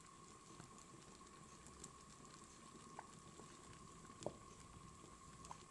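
Faint stirring of thick harira soup with a wooden spoon in a stainless steel pot, with a few light taps of the spoon against the pot, over a faint steady high tone.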